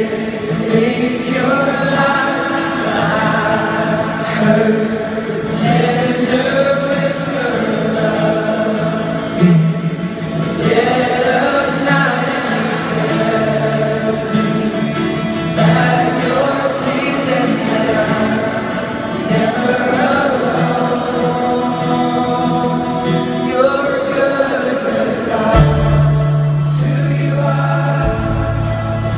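Live worship song played by a band with acoustic guitars, with many voices singing together in a large arena, recorded through a phone. A deep bass line comes in near the end.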